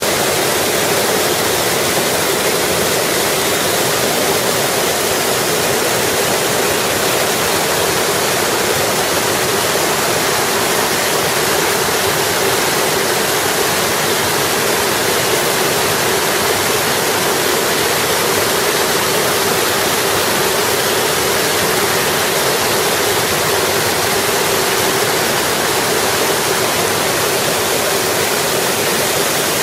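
Whitewater cascading down a rocky waterfall chute: a steady, loud rush of falling water that never lets up.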